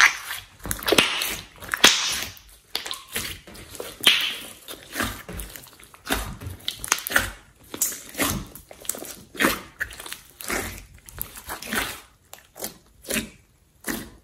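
A large batch of thick slime being kneaded, squeezed and poked by hand, giving irregular wet squishes, squelches and small crackling pops several times a second as air is pressed through it.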